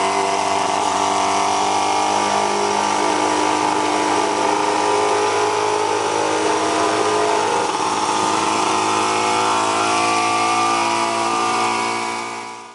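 Scott water-cooled two-stroke twin motorcycle engine running at a steady speed while the bike is ridden, its pitch holding nearly even.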